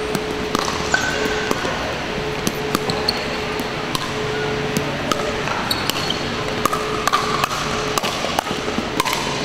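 Pickleball paddles striking a hard plastic pickleball in a rally: repeated sharp pops at an uneven pace, with the hall's echo after them.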